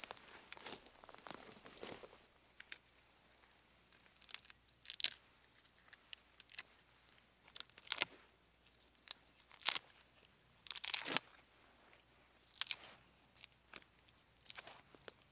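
Dry outer bark of a birch trunk being torn and scraped off by hand: about a dozen short tearing rips, irregularly spaced with pauses between.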